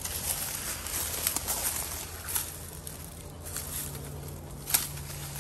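Birds calling outdoors over the crackle and rustle of footsteps moving through brush, with one sharp snap about three-quarters of the way through.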